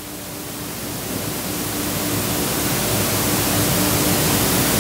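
Steady hiss of room tone and recording noise with a faint electrical hum, swelling gradually louder; no speech.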